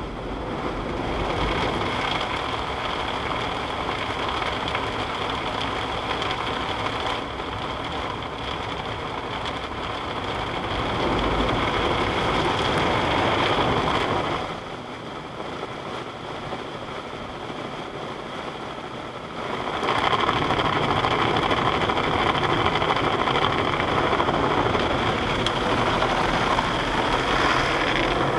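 Automatic car wash heard from inside the car: spinning brushes and water spray beating on the windshield and body, with a steady high whine from the machine beneath. It gets louder and eases off in turns.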